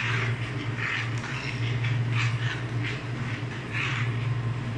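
A metal spoon stirring thick mung bean soup in an aluminium pot: irregular scraping swishes, roughly one a second, over a steady low hum.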